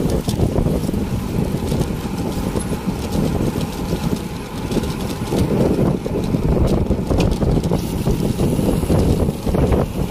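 Wind buffeting the microphone of a camera on a moving bicycle: a continuous low, gusting rumble, with a few faint ticks over it.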